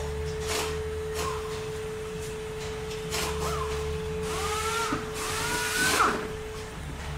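Workshop sounds: a steady hum and tone, scattered metal clinks of tools, and a power tool whirring with rising pitch for about two seconds, stopping about six seconds in.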